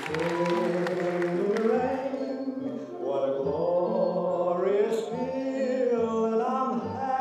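Vocal music: voices singing long, gliding notes over a low bass pulse about every 0.8 seconds, with one sharp hit about five seconds in.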